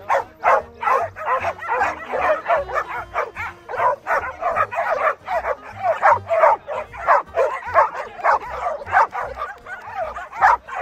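A large pack of dogs of mixed breeds barking excitedly all at once, many barks overlapping with no pause.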